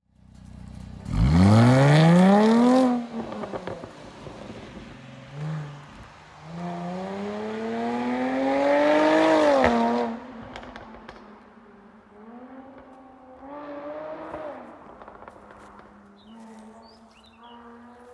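Jaguar F-Type's supercharged 3.0-litre V6 accelerating hard away, the pitch climbing steeply about a second in, with a burst of exhaust crackles as it lets off, then a second, longer rising pull. Fainter rising engine notes follow as the car gets farther off, echoing off the surroundings.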